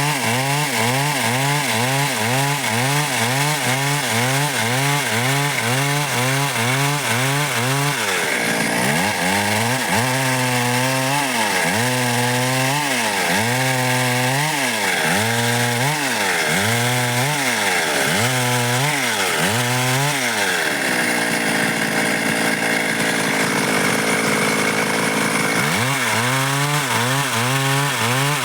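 Stihl MS 382 two-stroke chainsaw running hard while cutting dry wood, its engine pitch dipping and recovering with each push into the cut. The dips come about twice a second at first, slow to about one a second after eight seconds, hold steadier for a few seconds past the twenty-second mark, then quicken again near the end.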